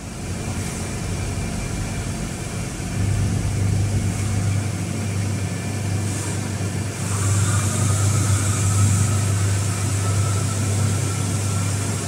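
Steady low machine hum over a noisy background, louder a few seconds in; a faint higher whine and a hiss join about seven seconds in.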